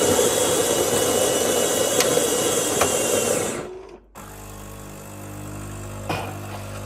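Saeco bean-to-cup coffee machine's built-in grinder grinding beans loudly for about three and a half seconds, then stopping. After a short pause, a quieter steady hum follows as the machine starts brewing the coffee.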